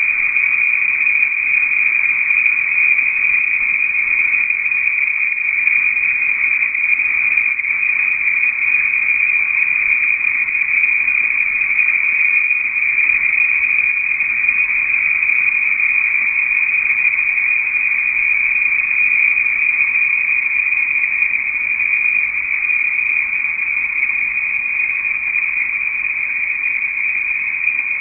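Loud, steady, shrill chorus of insects, an even high-pitched drone with no breaks.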